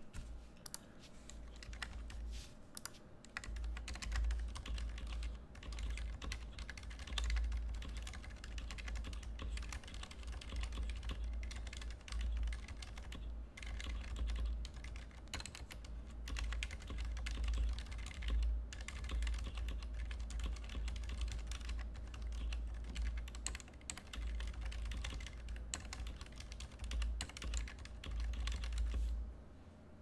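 Continuous typing on a Ducky One 2 Mini 60% keyboard with Cherry MX Silent Red linear switches: a dense, irregular run of keystrokes heard mostly as dull low thuds, with light clatter on top.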